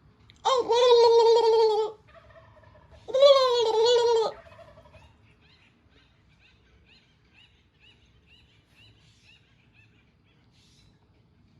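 A large bird calling loudly twice, each call about a second and a half long with a rapid rattling quality, followed by a faint run of short high chirps about two a second.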